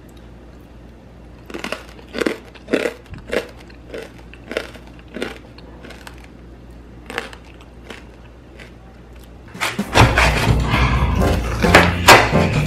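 Crispy skin of deep-fried pork belly (lechon kawali) crunching in a series of separate sharp crunches. About ten seconds in, a knife chops down through the crackling onto a wooden cutting board with louder, denser crunching and knocks.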